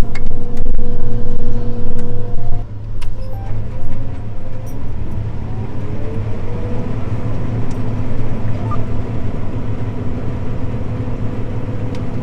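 John Deere combine harvester running under load while harvesting canola, heard from inside the cab: a steady low engine drone with several whines from the machinery. About two and a half seconds in, the whines drop away and a new whine rises slowly in pitch over the next few seconds, then holds steady.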